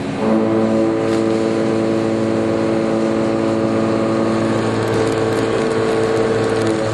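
Walter Blaxx F5041 indexable shoulder milling cutter (63 mm, ten inserts) cutting 42CrMo4 steel on a CNC machining centre: it bites into the workpiece about a quarter second in, then holds a loud, steady cutting tone with several constant pitches.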